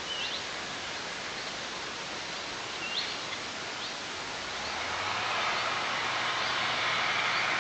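Outdoor ambience of steady rustling noise with faint, short high chirps every second or so. About five seconds in, a low engine hum rises and grows louder.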